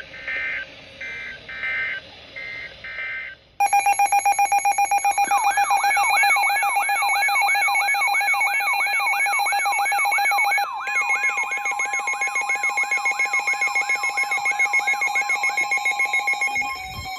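Emergency alert tones for a tornado warning: first a few short bursts of data tones typical of the SAME digital header, then several alarms sounding at once, loud. A steady tone and fast pulsing beeps run under a siren-like sweep that rises about three times a second. About seven seconds later the mix changes and a steady tone near 1 kHz joins, until the alarms cut off shortly before the end.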